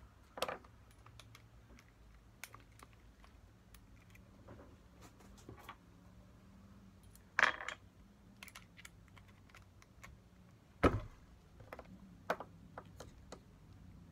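Scattered clicks, taps and knocks of a cordless drill, small tools and a piece of driftwood being handled on a wooden workbench, with louder knocks about half a second in, around seven and a half seconds, and near eleven seconds.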